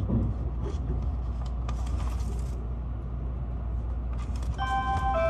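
Steady low rumble of an E657-series limited express train heard from inside the car as it pulls out of a station, with a few faint clicks and a brief hiss about two seconds in. Near the end a melody of bell-like chime tones starts.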